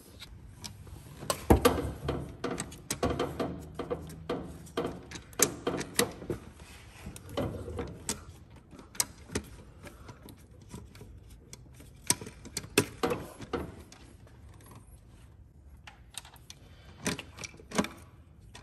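Socket ratchet clicking in quick runs, with a few knocks of metal on metal, as the throttle body's 5 mm hex bolts are undone.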